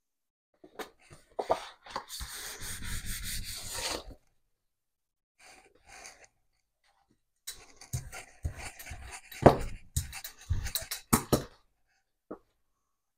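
Sheets of printed paper being lifted, slid and shuffled, rustling and rubbing for about two seconds. After a pause there is more rustling of paper, broken by a few sharp light knocks on the tabletop.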